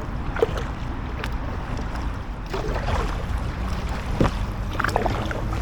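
Paddle strokes splashing and dripping in calm canal water from a packraft, a few irregular dips, over a steady low rumble of wind on the microphone.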